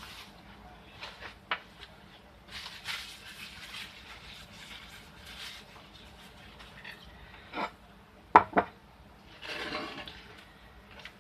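Kitchen handling sounds while a sandwich is put together: scattered light taps and clicks, two sharp clicks in quick succession about eight and a half seconds in, then a short rustle.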